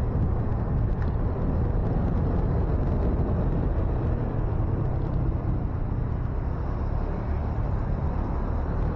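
Motorcycle running steadily as it is ridden along a road, with a low, steady wind rumble on the microphone.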